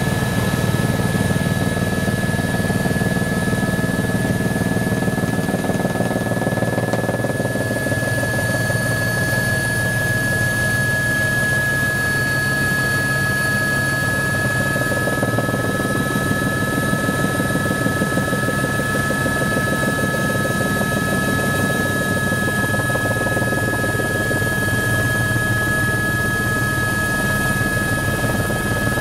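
Helicopter in flight heard from inside the cabin: a steady, loud engine and rotor noise with a constant high whine over it.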